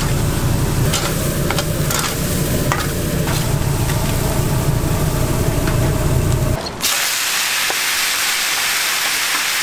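Chicken chunks searing over leaping flames on an open-fire grill: a low rumble of fire under sizzling, with a few sharp clicks of metal tongs. About seven seconds in the sound changes abruptly to a steady high sizzle of chicken in a hot cast iron pan.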